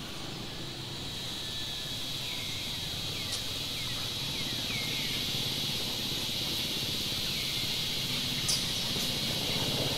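Steady high insect drone, like cicadas or crickets, over a low outdoor hum, with several short falling chirps scattered through it.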